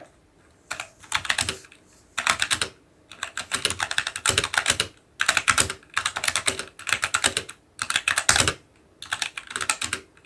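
Typing on an Ajazz AK33 60% mechanical keyboard with brown tactile switches and an aluminium base: quick runs of keystrokes in bursts, with short pauses between them.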